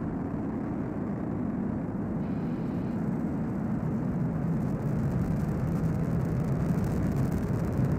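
Falcon 9 first stage's nine Merlin 1D engines climbing away after liftoff: a steady low rumble that grows slightly louder, with a faint crackle coming in about halfway. The engines are running normally, with stage 1 propulsion called nominal.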